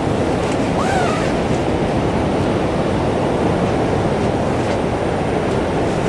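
Strong storm wind buffeting a tent, heard from inside as a steady, loud, low rumble.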